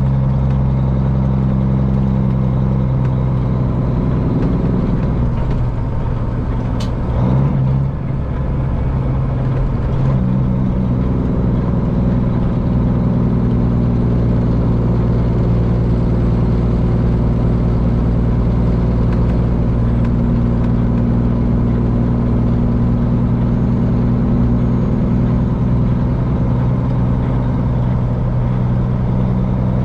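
Straight-piped Cummins diesel in a Peterbilt semi running steadily under way, a low, even engine note with a short waver in pitch and loudness about six to eight seconds in.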